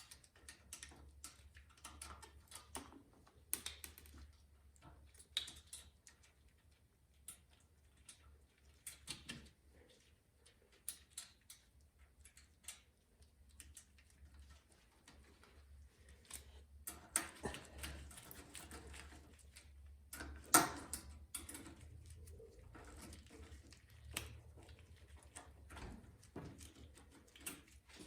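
Scattered light clicks and clatter of small engine parts and hand tools being handled during reassembly of a snowblower engine, with one sharper knock about twenty seconds in.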